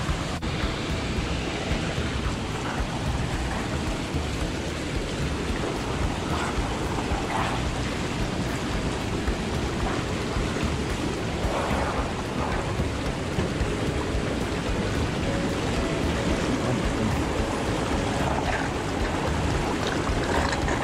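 Hot tub jets churning the water, a steady rushing, bubbling noise.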